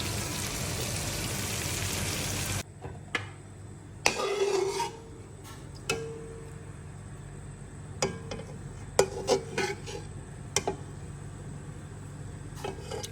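Chicken frying in oil in a karahi: a loud, steady sizzle that cuts off abruptly about two and a half seconds in. A quieter stretch follows, with a spoon scraping and knocking against the pan in short strokes and several sharp clinks.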